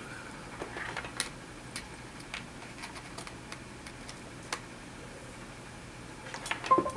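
Sparse, irregular clicks of computer keys being tapped, with a few louder knocks near the end.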